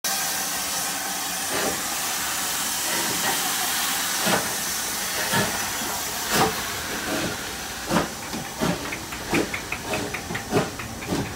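American steam locomotive pulling away: a steady hiss of steam with separate exhaust chuffs that come gradually quicker.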